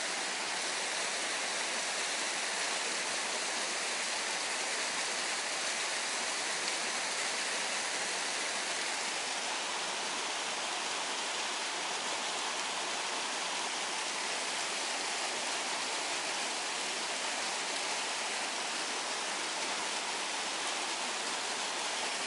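Steady rushing of flowing water, unchanging throughout.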